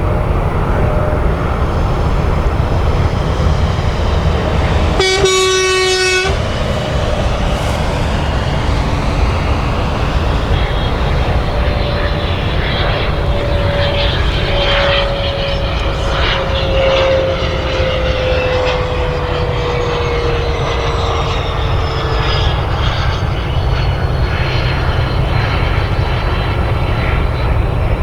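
Beechcraft Premier I business jet with its twin Williams FJ44 turbofans: a steady rumble and hiss, with an engine whine that falls slowly in pitch through the middle. About five seconds in, a short horn-like toot lasts about a second.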